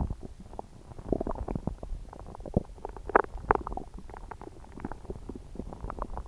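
Upset stomach growling and gurgling: a continuous run of short bubbling pops and squelches over a low rumble, with the loudest gurgles a bit past halfway. The stomach is upset, from no known cause.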